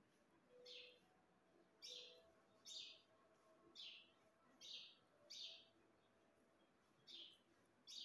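Indian ringneck parakeet giving short, high chirping calls, about eight in a row roughly a second apart, with a brief pause about three-quarters of the way through.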